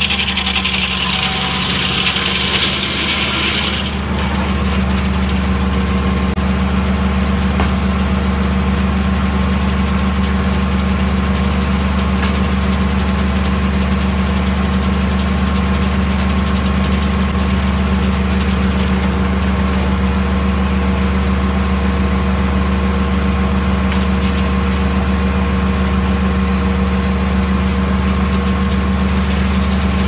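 Foley Belsaw M-14 circle sawmill finishing a cut through a log: the hiss of the blade in the wood stops about four seconds in, leaving the engine that drives the mill running steadily with the saw spinning free.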